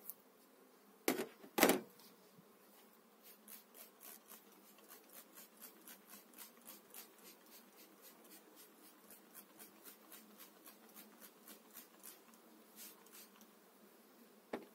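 Two knocks about a second in, then a hand trigger spray bottle pumped over the hive frames, short spray bursts about three a second, over the steady hum of honeybees.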